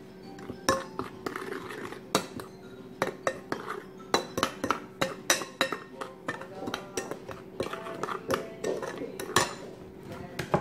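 Metal spoon stirring in a ceramic bowl, clinking sharply and irregularly against its sides many times in quick succession.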